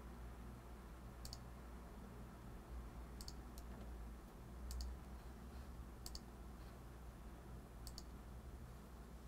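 Computer mouse button clicks, about six of them at uneven intervals. Each is a short, sharp click, mostly doubled as press and release. A faint low hum runs underneath.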